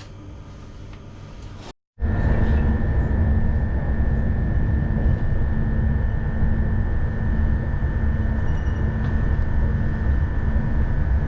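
Train running at speed: a loud, steady rumble with a thin steady whine above it, starting abruptly about two seconds in.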